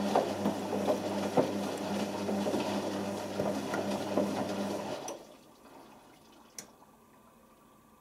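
Beko WM6103 washing machine turning its drum during the final rinse: a low motor hum with water sloshing and the load tumbling, which stops about five seconds in. A single click follows shortly after.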